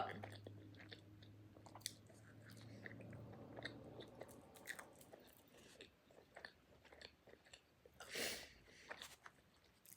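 Faint chewing and small wet mouth clicks of a person eating, with one short breathy hiss about eight seconds in.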